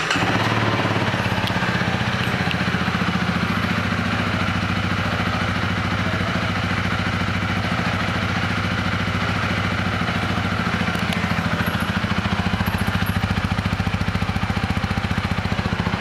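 2017 Honda Rebel 300's single-cylinder engine idling steadily, just after starting.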